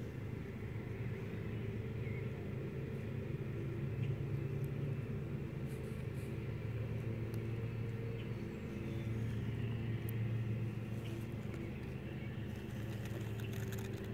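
A steady low mechanical hum that holds evenly throughout.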